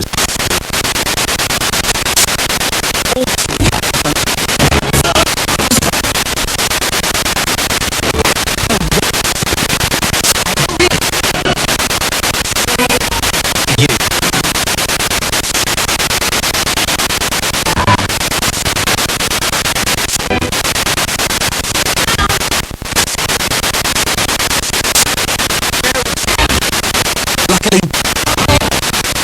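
Spirit box radio sweeping through stations: steady loud static hiss, broken by short dropouts and brief snatches of broadcast voices and music.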